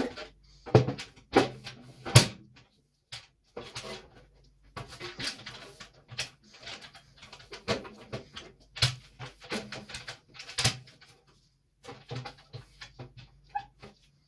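Containers and food items being handled while a refrigerator is organised: an irregular run of clicks, knocks and rustles as things are picked up, moved and set down.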